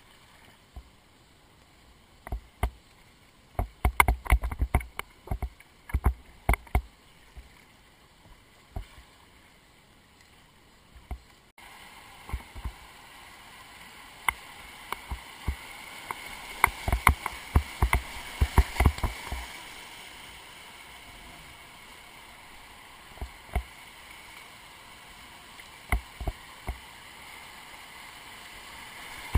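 Kayak paddling on a river: irregular paddle splashes and knocks. About twelve seconds in, a steady rush of moving river water comes in abruptly and carries on under them.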